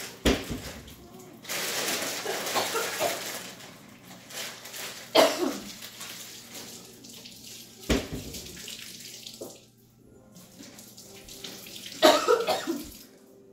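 Water running from a kitchen tap into the sink, as hands are washed after handling a Carolina Reaper chip, broken by several short loud sounds. The strongest rush of water comes a couple of seconds in.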